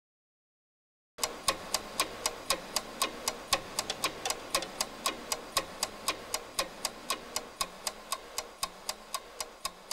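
Even, rapid ticking like a clock, about four ticks a second, starting about a second in and slowly fading toward the end.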